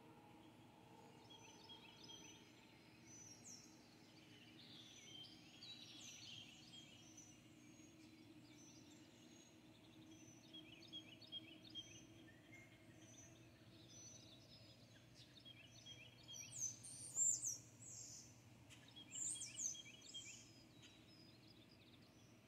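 Songbirds chirping and singing, with short repeated notes and trills and a few louder calls near the end, over a faint steady low hum of background noise.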